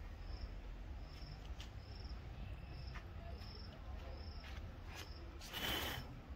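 An insect chirping, a short high-pitched chirp repeating a little more than once a second over a low steady rumble, with a brief louder rustle near the end.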